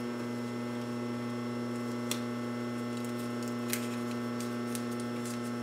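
A steady low electrical hum, with a few faint clicks from hands pressing tape onto the cord trim.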